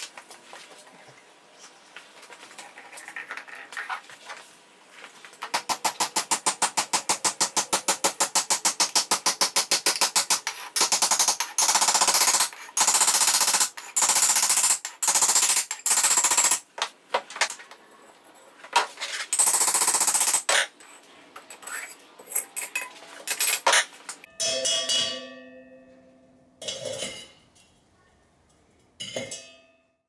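Ball-peen hammer pounding the hot steel crucible, cut from an old air-compressor tank, to dish its bell bottom so it sits flat: a fast, even run of blows about five seconds in, then slower single strikes. A faint steady propane-burner hiss comes before, and a few seconds of music close it out.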